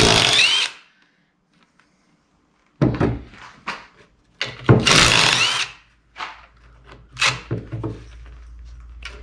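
Cordless power driver spinning bolts out of a truck's transfer case in two short whirring bursts, one at the start and one about four and a half seconds in. Metal clinks and knocks of the socket and bolts come in between. A faint low steady hum sets in about six seconds in.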